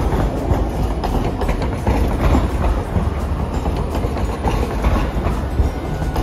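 Hiroshima Electric Railway low-floor articulated tram passing close by through a street-track curve, its wheels clattering over the rails with many quick clacks.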